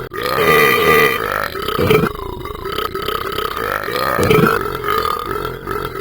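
A man belching continuously, long drawn-out burps one after another, with louder surges about two and about four seconds in. He has drunk a lot and can't stop burping.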